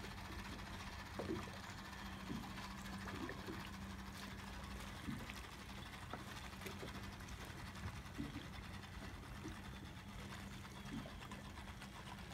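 Small waves lapping against the side of a boat in irregular soft slaps, over a steady low hum.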